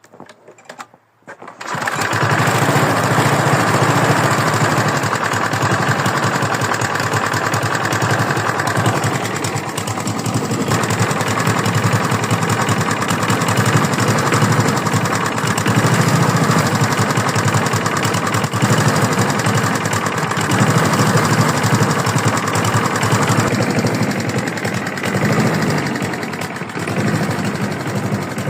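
Lawn mower engine catching about two seconds in and then running steadily, dipping briefly twice. It runs with a knock that the owner asks about as possible rod knock.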